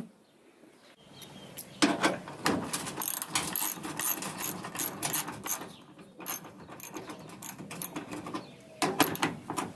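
Irregular clicking and clattering of hand tools and metal hardware as a mud flap is fastened in a truck's wheel well, starting about a second in.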